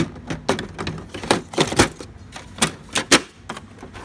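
An irregular run of sharp plastic clicks and knocks, about a dozen, as an HP 107A toner cartridge is handled and pushed into an HP MFP 135a laser printer.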